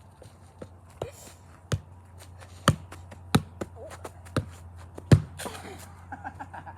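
A series of about seven sharp knocks or taps at uneven spacing, the loudest about five seconds in.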